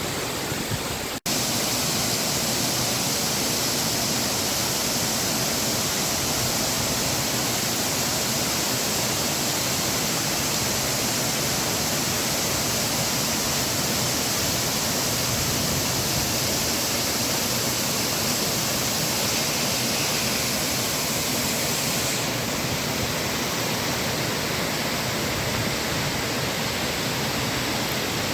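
Waterfall: a steady, loud rush of falling water, with a momentary dropout about a second in.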